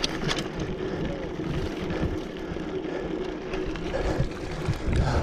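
Mountain bike rolling along a dry dirt singletrack: a steady noise of knobby tyres on dirt and gravel, with a few knocks and rattles from the bike over bumps.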